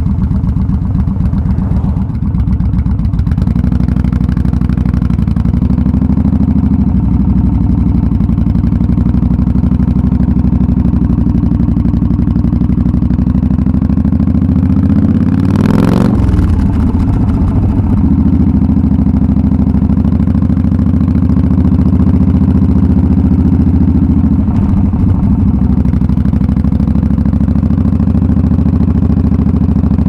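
Yamaha V Star 1300's V-twin exhaust running steadily as the motorcycle rides, heard close to the exhaust. About halfway through the pitch briefly dips and comes back up, with a short rush of noise.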